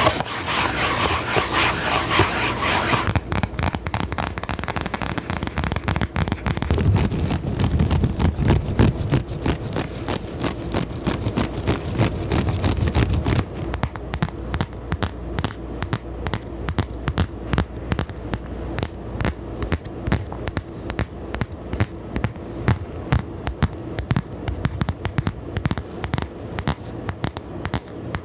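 Close-miked ASMR trigger sounds: a dense scratchy hiss for about three seconds, then a fast run of clicks and scratches, settling after about thirteen seconds into steady rhythmic tapping.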